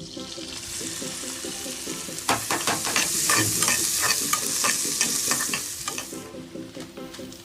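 Food sizzling as it is stir-fried in a hot pan, with a spatula clicking and scraping against the pan from about two seconds in. The sizzle dies down about six seconds in.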